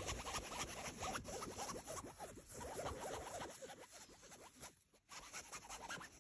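Rapid scratching and rustling on the fabric wall of a pop-up cat tent. It is dense for the first half, then thins out into sparser strokes with short gaps.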